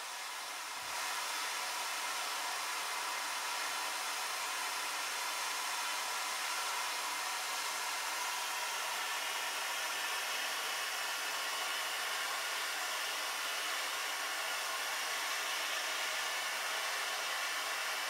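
Vacuum cleaner running with a steady rushing noise, a little louder from about a second in.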